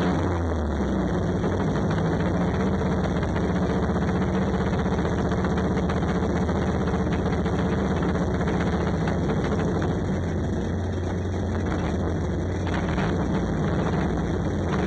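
Banger racing car's engine idling steadily, heard from inside the cabin.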